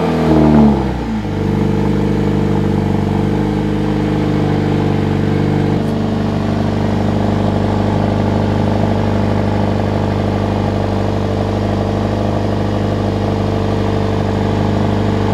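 Mercedes-AMG A45 S's 2.0-litre turbocharged four-cylinder engine in a cold start. It catches with a rev flare that falls away within the first second or so, then settles into a steady fast idle.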